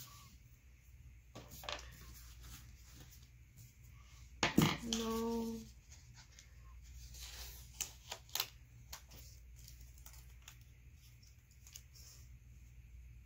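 Soft handling of paper planner pages and washi tape: rustling, tapping and a few sharp clicks as the tape is trimmed and pressed down and the pages are moved. About four and a half seconds in comes a short hummed vocal note, about a second long, the loudest sound here.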